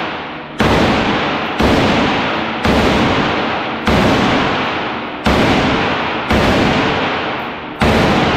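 Rifle fired seven times, slow single shots about a second apart, each shot's report ringing and fading in the echo of an indoor firing range.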